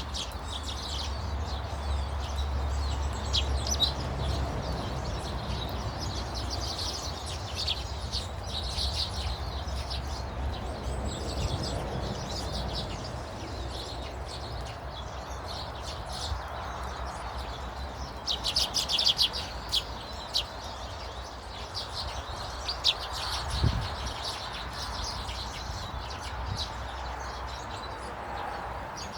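Garden birds chirping and twittering, many short calls overlapping, busiest and loudest about two-thirds of the way through, over a steady low rumble.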